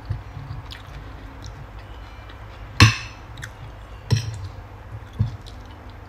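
Metal spoon and fork clinking and scraping on a ceramic plate of rice: three sharp clinks about a second apart, the first the loudest, with faint chewing between them.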